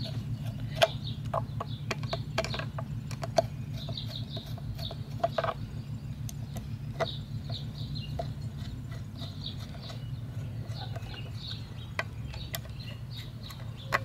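Screwdriver driving the screws of a push-mower carburetor, giving scattered small metal clicks and a few sharper knocks, over a steady low hum.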